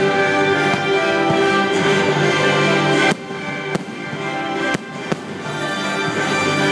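Fireworks show music with long held notes, broken by several sharp fireworks bangs, the clearest about three seconds in and another three between four and five seconds in.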